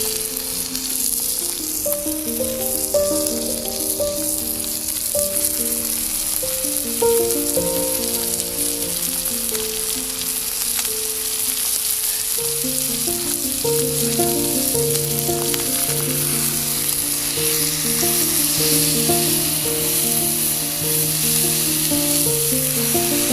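Food sizzling as it fries in a pan, a steady hiss, under background music playing a melody; a lower bass part joins the music about halfway through.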